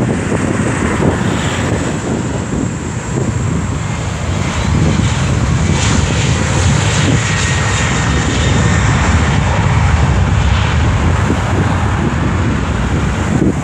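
Jet airliner's engines at takeoff power as it rolls for departure: a steady, loud rumble that grows louder about a third of the way in and holds.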